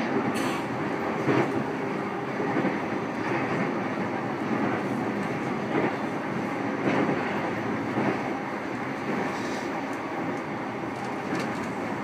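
Cabin running noise of a JR East E233-6000 series electric commuter train under way: a steady rumble of wheels on rail, with an occasional sharper clack of the wheels over rail joints every second or few.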